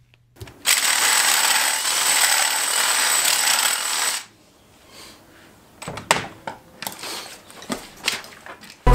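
Cordless drill with a 5/8-inch bit running and boring into the bone of a wolf skull's ear region for about three and a half seconds, then stopping. Scattered light clicks and knocks follow near the end, as the drill and tools are set down on concrete.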